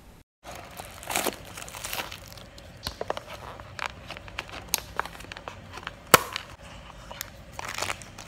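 Hands working the lid off a paper cup and pulling out a foil sachet of hot chocolate powder: irregular crinkling and rustling of the foil and packaging with sharp clicks, the sharpest snap about six seconds in.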